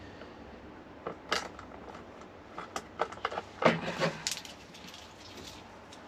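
USB-C charging cables with small metal connectors being handled and pushed into a rubber storage case: scattered clicks, light metallic clinks and rustles, loudest about three and a half seconds in.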